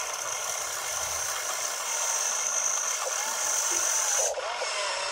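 RC excavator's small electric motors whining as it works its boom and bucket in the dirt, with lower tones gliding up and down. The whine cuts off abruptly about four seconds in.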